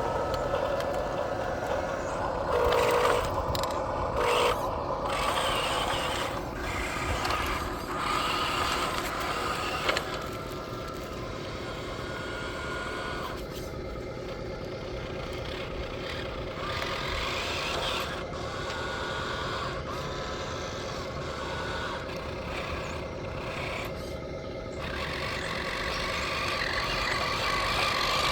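Small electric motors and gears of a model RC excavator and RC trucks whining steadily as they work, the pitch shifting from time to time.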